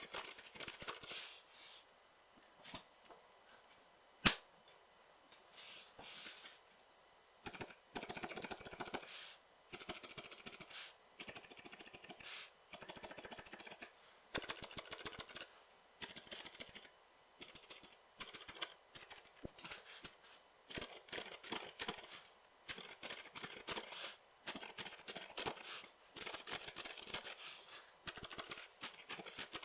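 Faint typing in bursts on an FL CMMK MK870 mechanical keyboard fitted with Gazzew Boba U4 silent tactile switches, a stainless steel plate and PBT keycaps, with short pauses between runs of keystrokes. One sharp click stands out about four seconds in.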